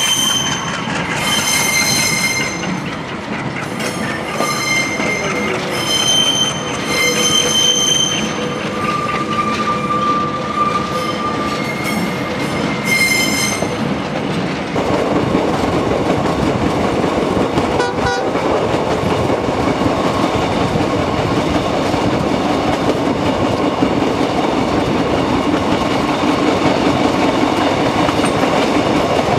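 Diesel locomotive horn sounding a series of blasts with short gaps between them over the running noise of the passenger train. From about halfway, only the steady rumble and clatter of the carriages' wheels on the rails remain as the train runs on.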